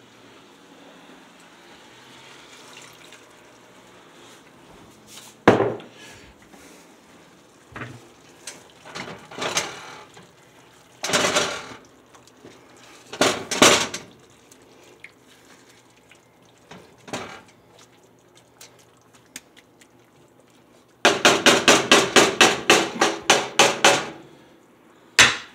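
Wooden spatula stirring and knocking in a cast-iron skillet of ground beef and asparagus, in short separate bursts, then a quick run of about a dozen taps near the end, roughly four a second.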